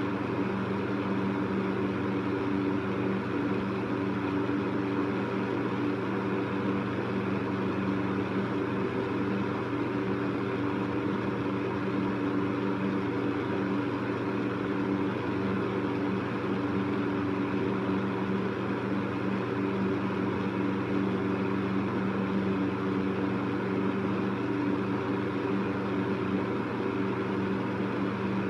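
Electric fan running steadily: a constant hum of several low tones under an even rush of air.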